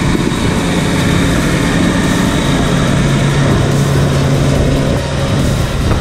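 Diesel engine of a Caterpillar 120H motor grader running steadily as the machine drives slowly past at close range.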